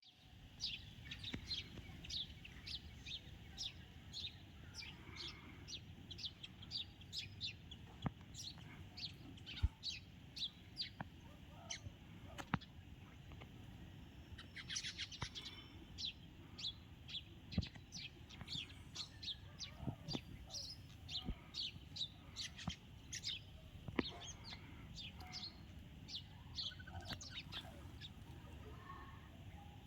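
House sparrows chirping over and over in short, quick notes, with a few sharp clicks now and then.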